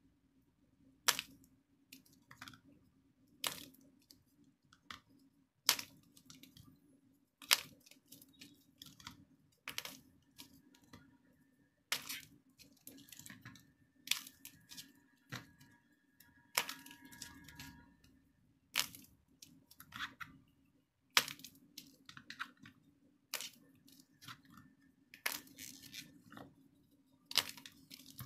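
Crisp outer shells of soft-centred purple clay grape balls cracking and crumbling as fingers squeeze them: a sharp crack every second or two, with fine crackling and crumbling between.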